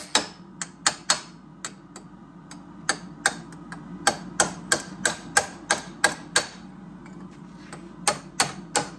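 Small hammer tapping on a thin steel tube being shaped for a chainsaw muffler: sharp metallic taps, irregular, about two to three a second, with a pause of a second or so near the end before they resume.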